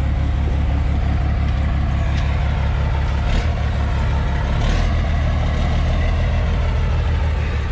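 Freightliner grain truck's diesel engine running steadily at low speed with a deep rumble as the truck is maneuvered into line over the grain pit.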